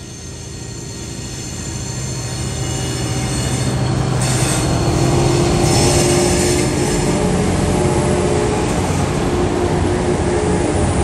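TasRail TR class diesel-electric locomotive TR14 approaching and passing close by, its engine getting louder over the first six seconds and then holding steady as the locomotives go past. A thin high wheel squeal runs through the first half and fades out.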